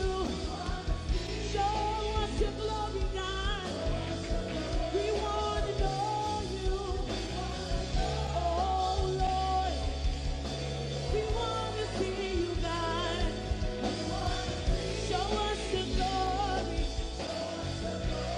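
Live worship song: a woman sings the lead melody into a microphone over a full band with drums.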